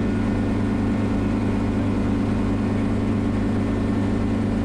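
Schweizer 300CB helicopter's piston engine and rotors running steadily, heard from inside the cockpit as the helicopter sits on the pad just after setting down.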